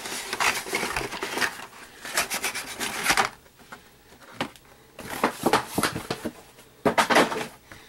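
Stack of carded Hot Wheels cars in plastic blister packs sliding out of a tipped-up cardboard box, the cards and blisters scraping, rustling and clacking against the box and each other. The sound comes in bursts, with a quieter pause a little before halfway and a loud clatter near the end.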